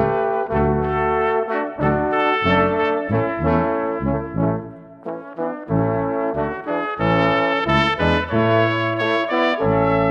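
Brass ensemble of trumpet, French horn, trombone and tuba playing a Congregação Cristã no Brasil hymn in four-part harmony, with the tuba on the bass line. A chord is held near the end.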